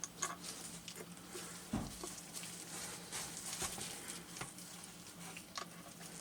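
Faint, scattered small clicks and taps of handling the Icom ID-5100 control head as plastic knobs are pushed onto their shafts, with a dull thump about two seconds in, over a faint steady hum.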